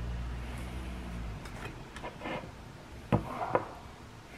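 Close-miked handling of crisp fried prawns and a lemon wedge over a glass bowl. A low rumble stops about a second and a half in, then come light crackles and two sharp clicks about three seconds in.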